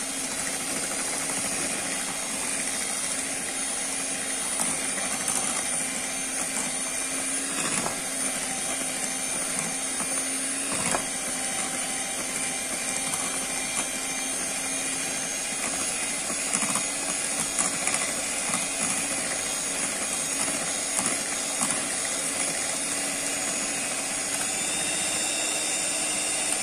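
Electric hand mixer running steadily at one speed, its beaters churning through cake batter in a bowl, with an even motor whine that holds one pitch. A couple of brief knocks come partway through.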